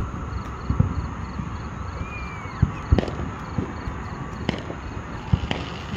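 Distant fireworks going off: several dull booms and pops at uneven intervals over a steady background hiss.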